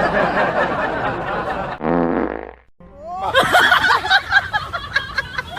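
Fart sound effects played for a prank: a noisy, sputtering stretch, then a short buzzy blast about two seconds in. A few seconds in, several excited voices break out, some laughing.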